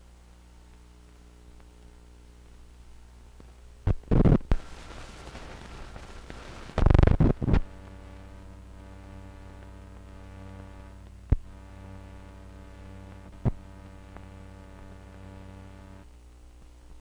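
Steady electrical hum and noise from the soundtrack of an old film print. Two loud crackling bursts come about four and seven seconds in, and two sharp pops come later. The hum gets louder after the second burst and drops back near the end.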